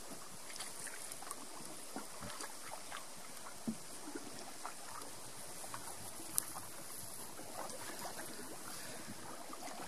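Lake water lapping and splashing softly against the hull of a small boat moving along a shoreline, with scattered small splashes and a couple of sharp clicks, the loudest about six seconds in.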